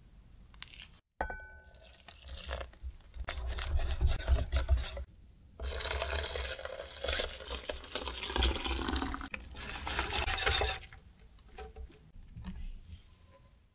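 A wire whisk stirring egg-yolk custard mixture in a glass bowl, with liquid sloshing as milk is poured in and whisked through. A light clink of glass comes just after a second in.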